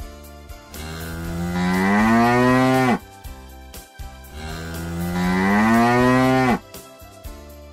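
Cow mooing twice, two long moos about a second apart, each rising slightly in pitch and dropping off at the end.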